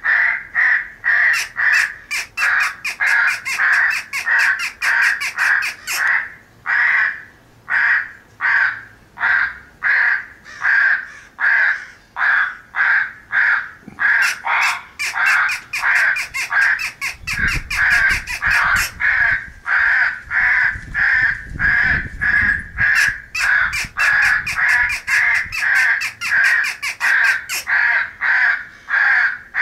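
A group of crows at a feed, cawing over one another without a break, about two or three caws a second. A low rumble sits under the caws for a few seconds past the middle.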